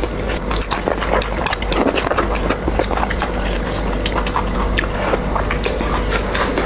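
Close-up eating sounds of Korean noodles being eaten with chopsticks: wet chewing and mouth noises, with many quick sharp clicks of chopsticks against the tray.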